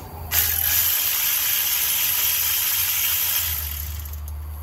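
Ratchet wrench clicking rapidly as it backs out a bolt, for about three seconds, then easing off near the end, over a steady low hum.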